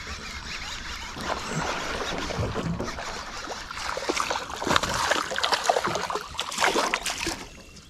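Water splashing with scattered clicks and knocks around a small boat as a hooked largemouth bass is brought in. The sounds get busier from about four seconds in and die down near the end.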